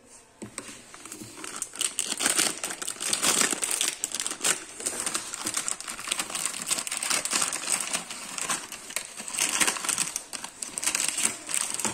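Plastic wrapper of an instant noodle packet crinkling in irregular crackles as it is handled and opened, starting about half a second in.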